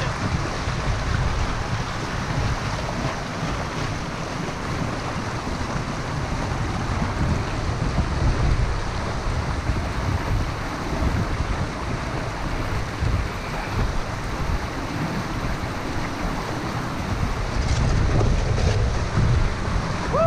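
Fast river current rushing past a canoe held against a rock, with gusts of wind buffeting the microphone.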